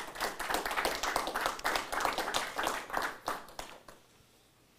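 Audience applauding, a dense patter of hand claps that dies away about four seconds in.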